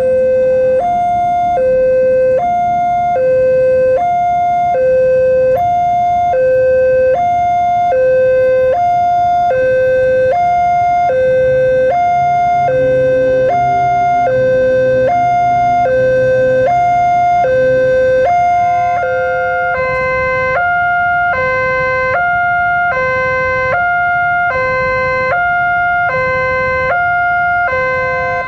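Railway level-crossing warning alarm sounding with the boom barrier down: a loud electronic two-tone high-low chime, about one high-low pair per second. A vehicle engine hums low in the middle, and after about two-thirds of the way a second, offset set of tones joins in.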